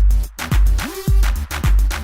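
Electronic dance music with a heavy bass kick on a steady beat, about two pulses a second, and falling synth sweeps.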